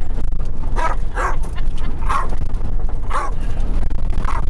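Jack Russell terrier barking at the sweeping windshield wipers, five barks at uneven spacing, over the steady low rumble of the vehicle driving, heard inside the cabin.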